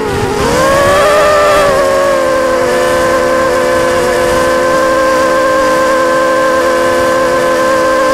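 Electric motors of a small FPV remote-control aircraft whining in flight: a steady high hum with overtones that dips in pitch just after the start and climbs back within about a second as the throttle comes up, then holds steady.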